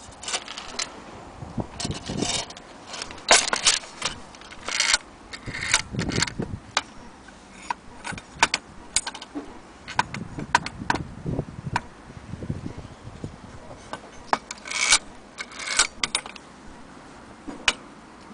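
A brass longcase clock movement being handled, with irregular metallic clinks, knocks and the jangle of its hanging chains.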